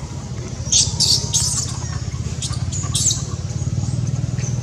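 Short high-pitched animal squeaks, a quick cluster about a second in and another near three seconds, over a steady low hum.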